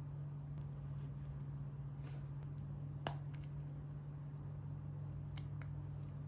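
Plastic LEGO bricks being handled and pressed together, giving short sharp clicks: one distinct click about three seconds in and two lighter ones a little after five seconds, over a steady low hum.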